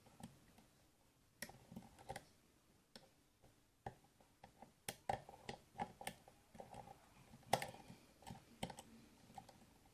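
Faint, irregular small metallic clicks and ticks of a lock pick working the pins of an EVVA EPS lock cylinder under a tension wrench, a few louder clicks among them.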